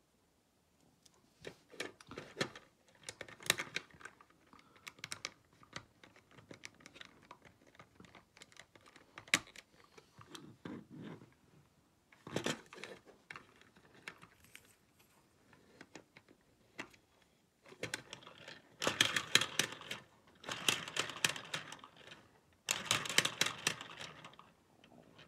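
LEGO bricks and Technic parts clicking and snapping together by hand in irregular clicks. Near the end come three short bursts of dense plastic clattering as the LEGO vacuum engine runs and its flywheel spins.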